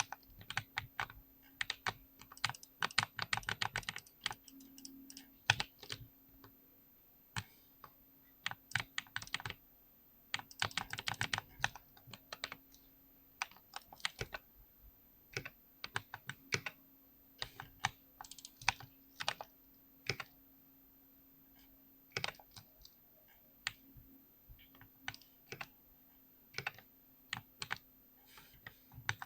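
Typing on a 65% keyboard: irregular keystroke clicks, with quick runs of typing in the first few seconds and again around ten to twelve seconds in, and slower, scattered keystrokes between. A faint steady low hum runs underneath.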